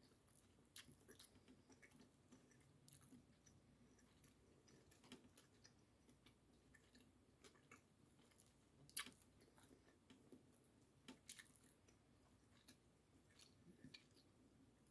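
Faint chewing of a sushi roll: soft, irregular mouth clicks and smacks, one a little louder about nine seconds in.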